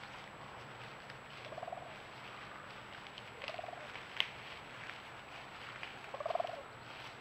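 Eastern wild turkey gobbling three times, each a short rattling call, roughly two to three seconds apart, the last the loudest. A single sharp click comes about four seconds in, between the second and third calls.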